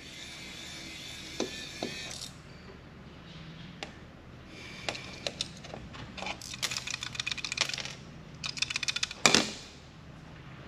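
A small electric screwdriver's motor whirs for about two seconds. Scattered clicks follow, then fast runs of ratchet-like clicking and one sharp clack a little after nine seconds, as small metal parts of a laptop hard disk drive are worked loose.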